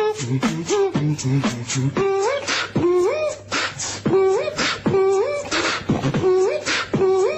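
Beatboxing: mouth-made kick and snare sounds in a steady rhythm, with a hummed tone that slides upward, repeated a little more often than once a second.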